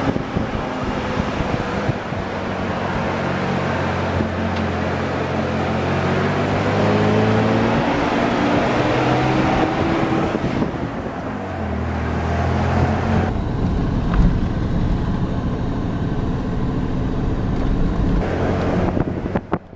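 A 4x4 truck's engine running as it drives along a sandy canyon track, its note climbing slowly for several seconds and dropping about halfway through, with wind buffeting the microphone.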